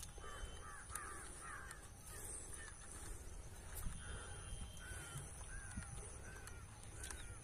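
Faint bird calls: a short, arched note repeated about every half second. A few light clicks come from the small drone being handled.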